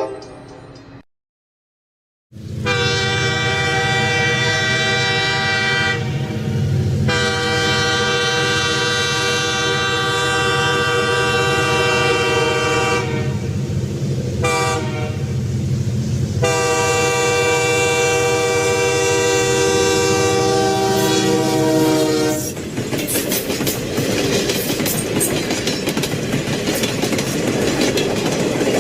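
Locomotive air horn sounding the grade-crossing signal, long, long, short, long, over the low rumble of a passing train. The horn stops about three quarters of the way through, and the clatter of the rail cars' wheels over the rail joints goes on. It opens with the cut-off end of another horn blast and a short gap.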